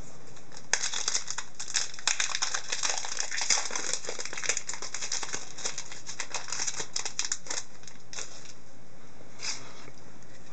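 Foil trading-card pack wrapper crinkling and crackling as it is torn open, a dense run of crackles starting under a second in and lasting about seven seconds, then one brief rustle near the end.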